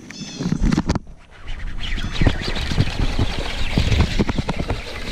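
Baitcasting reel cranked while a hooked bass is reeled in, with rod and reel handling noise. From about a second and a half in there is a dense, irregular run of rattles and knocks.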